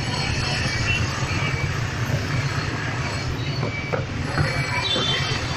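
Steady street traffic noise, vehicle engines running, with a few brief high squealing tones, the clearest about five seconds in.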